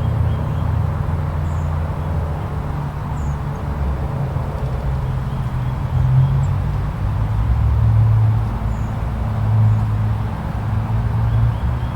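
Snowstorm wind gusting in a deep rumble with a hiss above it, swelling about halfway through and again a few times near the end.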